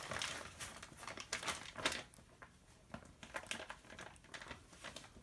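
Plastic tarp crinkling and rustling as it is handled and a brass grommet is pushed through its hole. The crackle is busiest in the first two seconds, then comes in sparser bits.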